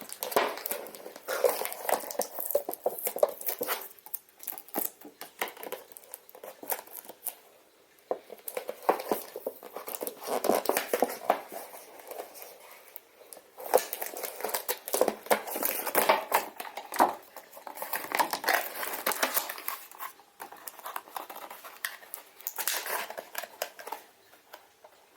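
Drone packaging being handled and opened by hand: irregular crinkling and rustling with sharp clicks and snaps, pausing now and then.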